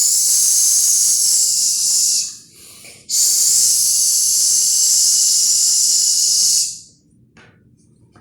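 A woman making the 'sh' sound of the Portuguese letter X, a long sustained hiss produced twice: the first ends about two seconds in, the second lasts nearly four seconds.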